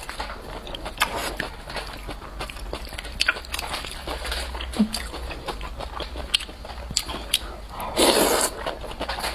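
Wide flat noodles in sesame-paste sauce being chewed and slurped: wet smacking and clicking mouth sounds, with one longer, louder slurp about eight seconds in.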